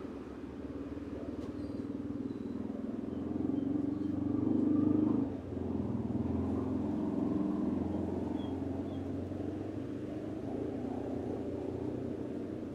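Low rumble of a motor vehicle, swelling to its loudest about five seconds in, dropping off suddenly, then running on more evenly.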